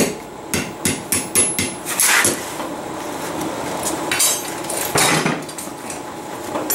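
Hand hammer striking red-hot 3/8-inch rebar on a steel anvil: a quick run of blows in the first two seconds, then two more about four and five seconds in.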